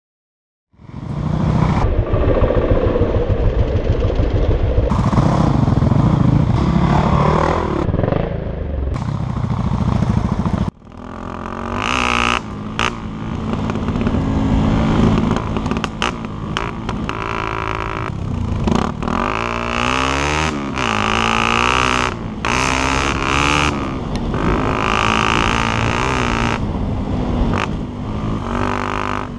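Enduro motorcycle engine being ridden hard, its revs rising and falling again and again, heard close up from a helmet-mounted camera. The sound starts after a brief silence and cuts off abruptly about ten seconds in, picking up again straight away with more rising and falling revs.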